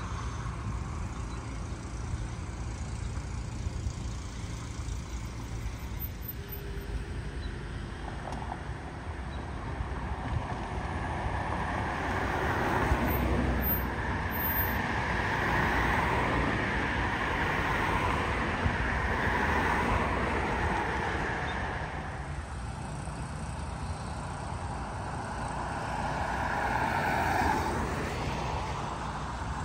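Road traffic: cars passing on a street over a steady low rumble, with a long swell as vehicles go by through the middle and another as one approaches near the end.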